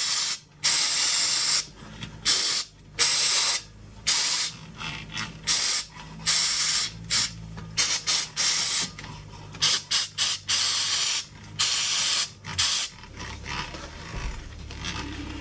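An aerosol spray can is fired in about a dozen bursts, some short and some about a second long, directly into the volume and balance potentiometers of a Pioneer SA-620 amplifier, flushing contamination out of their contacts. The bursts stop about 13 seconds in.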